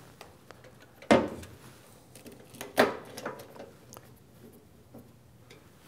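Two sharp knocks about a second and a half apart as the steel enclosure door and tools are handled, followed by light ticks of a screwdriver working the switch's terminal screws.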